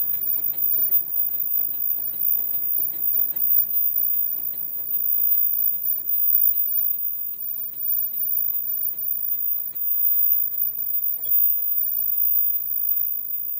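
Automatic surgical mask production machine running, with a steady mechanical hum and rapid, regular clicking from its feed and forming mechanisms.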